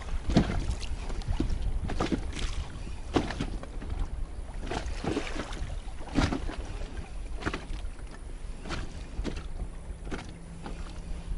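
Small waves slapping against the hull of a small fishing boat, with short irregular splashes and knocks every second or so over a steady low rumble of wind on the microphone.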